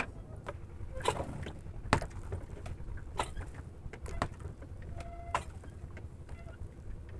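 Scattered sharp clicks and knocks, about one a second, over a steady low rumble; the loudest comes right at the start.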